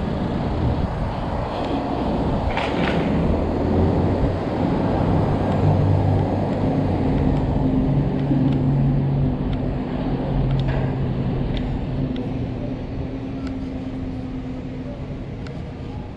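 Street traffic: a motor vehicle's engine running as it goes past on the road, loudest around six seconds in and fading away toward the end.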